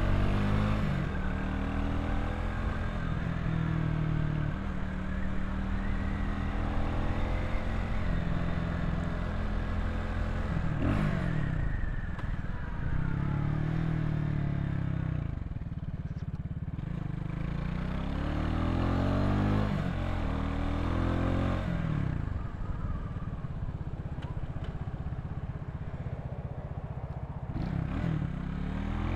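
Vitacci XMT 250 motorcycle engine under way. Its pitch climbs and falls several times as it accelerates and slows, with a sharp drop and re-rise about a third of the way through.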